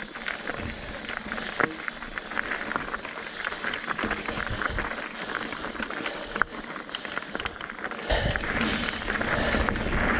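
Mountain bike being ridden up a dirt singletrack trail: tyres crunching over dirt and small stones, with many small clicks and rattles from the bike. About eight seconds in, a louder low rumble comes in.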